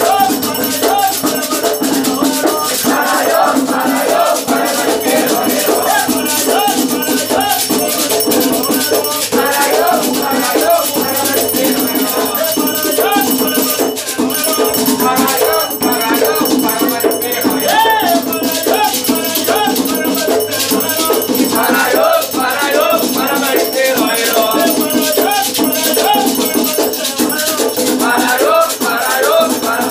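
Batuque ritual music: rattles shaken in a steady, continuous rhythm while voices sing chants.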